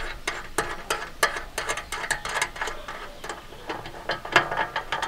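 Hand screwdriver ratcheting as Phillips screws are driven into a metal gazebo corner piece: quick, irregular clicks, several a second.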